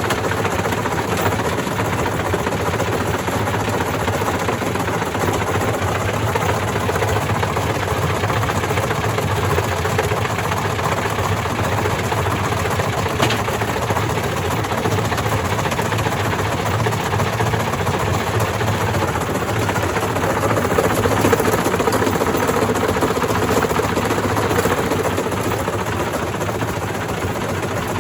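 Indesit IWDC6105 washing machine running loaded with bricks: a steady, loud mechanical racket of the motor and drum with a dense, rapid clatter of bricks knocking inside. It swells a little about three quarters of the way through.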